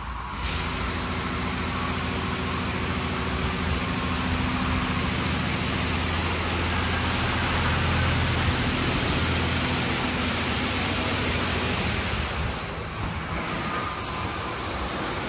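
Washworld Razor Edge touchless car wash machine running: a steady hum from its pump motor under the hiss of water spraying onto the car. It starts about half a second in and eases off near the end.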